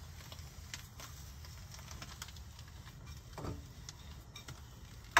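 Faint clicks and taps of a frying pan and metal tongs being handled on a gas hob, over a steady low hum.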